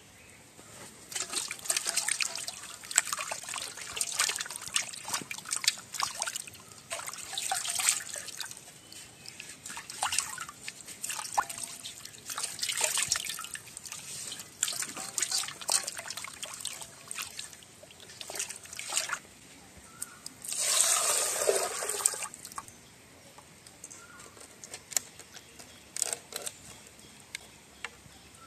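Water splashing and trickling as pieces of raw tuna are rinsed by hand in a metal basin, in many short irregular splashes. About two-thirds of the way through comes one louder, longer splash of water, then only a few faint drips.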